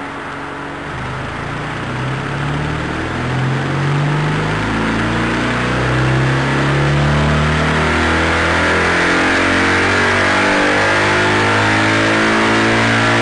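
Kawasaki W800's parallel-twin engine, fitted with a Remus aftermarket exhaust, running in gear with the rear wheel driving a roller: engine speed and loudness climb steadily for about eight seconds, then hold at high revs.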